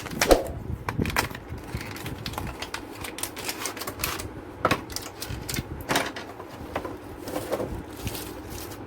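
Irregular clicks and knocks of a 2.5-inch SSD being handled and fitted into a computer cabinet, the loudest a sharp knock just after the start.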